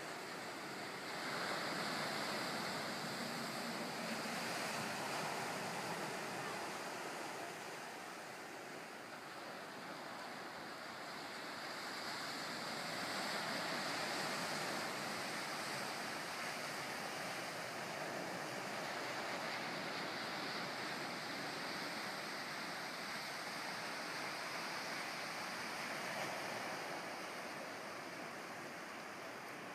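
Ocean surf breaking over shoreline rocks and washing onto sand: a steady rush that swells and eases every few seconds.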